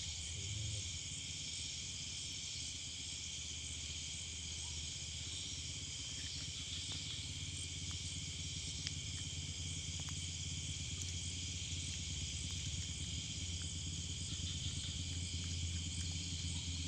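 Steady, unbroken chorus of night insects, crickets among them, a continuous high trilling in several pitches, over a low steady rumble.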